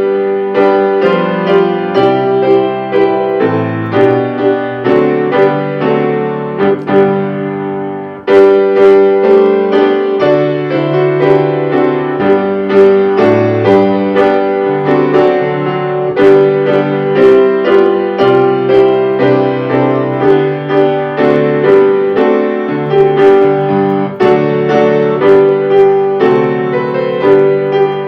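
Piano music, a steady run of struck notes and chords that dips briefly about eight seconds in and then carries on.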